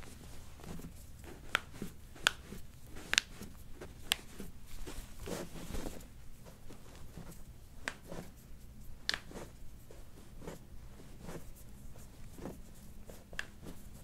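Hands gripping and rubbing socked feet, with soft fabric rustling and a handful of short, sharp clicks scattered through it.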